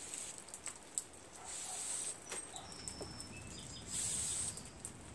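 Faint handling noises from small carburetor parts being worked by hand: light clicks and taps, with two short hissy rustles and a couple of brief, faint high chirps.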